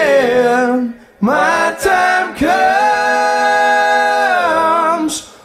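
Background music: several voices singing long held harmony notes a cappella, with no instruments underneath, in phrases that break off about a second in and again just before the end.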